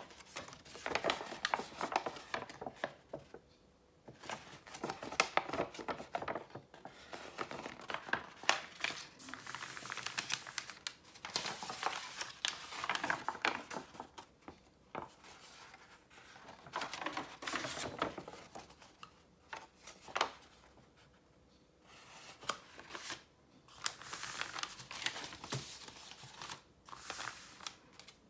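Sheets of dyed paper being handled and squeezed, rustling and crinkling in bursts of a few seconds with short pauses between them.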